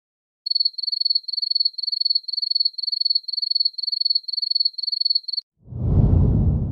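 Cricket chirping in a steady series of high trilled chirps, about two to three a second, for about five seconds. It stops, and near the end a louder low whoosh swells up.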